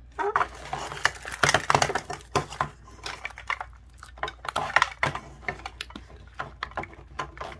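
A small printed plastic packet crinkling and clicking in the fingers as it is handled, with irregular sharp taps and rustles and no steady rhythm.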